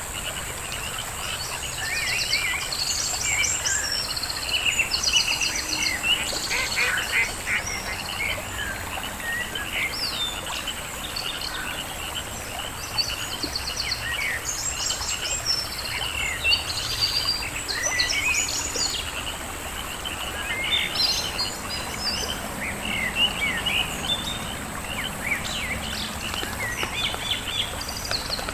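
Many songbirds chirping and trilling over a steady high insect drone, a continuous nature ambience.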